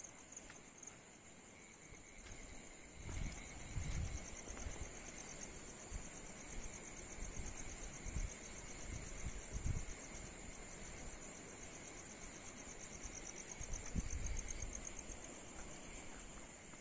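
Night insects trilling steadily, a fast, high, pulsing trill with a fainter lower one beneath it. Low thuds of footsteps on damp soil come now and then: a few seconds in, around the middle and again later.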